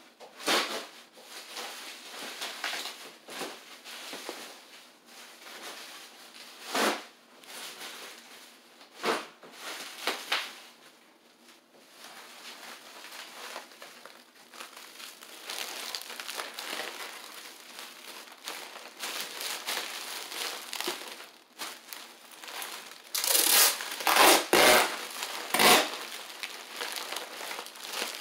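Plastic bubble wrap crinkling and rustling as it is handled and wrapped around a part, in irregular bursts that get louder near the end.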